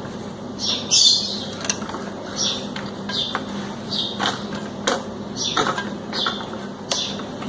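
Light clicks and knocks of a TV circuit board and its plastic chassis being handled and turned over, with a bird chirping over and over in the background.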